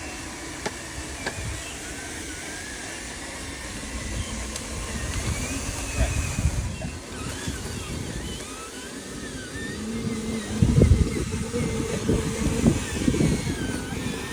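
Small electric motors of radio-controlled vehicles whining, their pitch rising and falling with the throttle, over a low rumble; it grows louder with a steady hum about ten seconds in.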